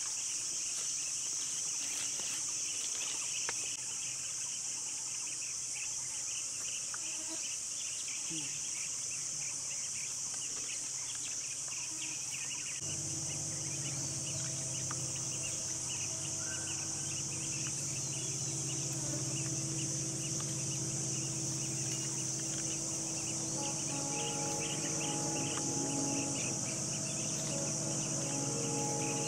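Forest insects droning steadily at a high pitch, with rapid chirping under the drone. About halfway through, a low steady hum of unclear source joins in and lasts to the end.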